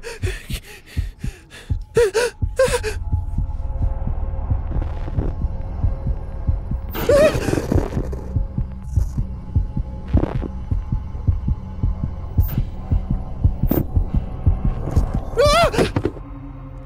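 A sound-effect heartbeat throbbing over a low hum, building tension like a panic attack. A young woman's voice gasps and strains for breath a few times over it, with a longer drawn-out gasp about seven seconds in and another near the end.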